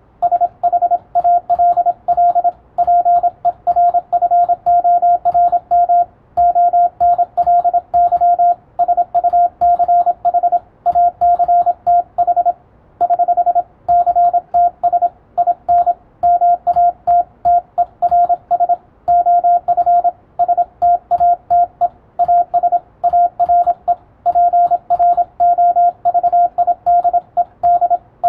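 Morse code (CW) sending English text: a single steady beep keyed on and off in quick dots and dashes, with short gaps between characters and words. Soft keyboard clicks run underneath as the text is typed while it is received.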